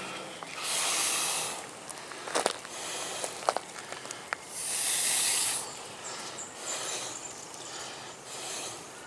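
A man breathing hard through the effort of working fence wire by hand: long hissing exhalations, one near the start and a stronger one about halfway through, with fainter breaths and a few light metallic clicks between.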